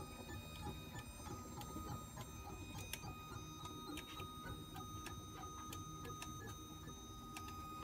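Stepper motors of a homemade syringe-extruder 3D printer running as it prints: a faint steady high whine with light, irregular ticking.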